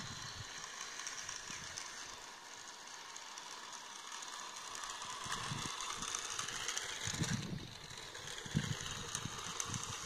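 Toy radio-controlled Ferrari LaFerrari's small electric motor and plastic gearbox whirring as it drives on tarmac, with a high whine that rises and falls now and then.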